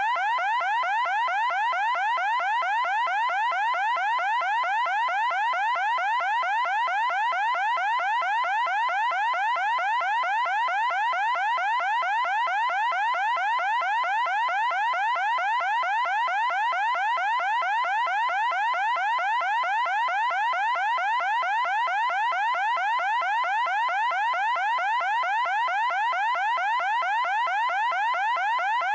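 Electronic alarm siren: a rapid, unbroken string of short rising sweeps, several a second, repeating evenly at a constant pitch and level.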